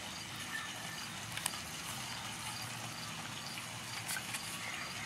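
Oracle cards being handled and shifted on a cloth, with a few sharp clicks of cardstock about a second and a half in and again about four seconds in, over a steady hiss.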